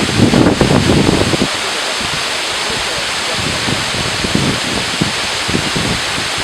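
Steady rushing of a waterfall, with wind buffeting the microphone in about the first second and a half and briefly again later.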